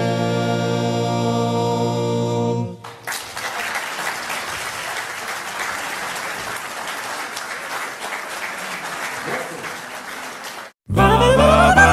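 Male a cappella vocal group holding the final chord of a gospel song, which cuts off about three seconds in; an audience then applauds steadily. Near the end the applause stops abruptly and loud a cappella singing of a new song begins.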